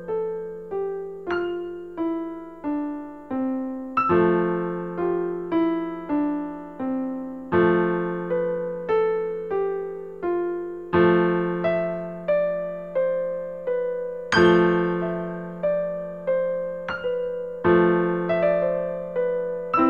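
Solo piano music: a slow melody of single struck notes, each fading away, moving in phrases that step downward over a low bass note struck again every three to four seconds.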